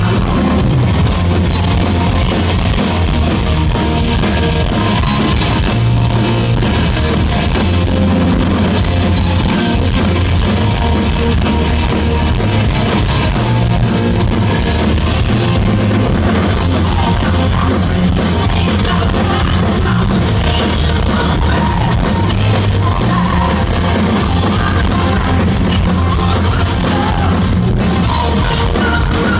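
Heavy metal band playing live and loud: distorted electric guitar over a drum kit.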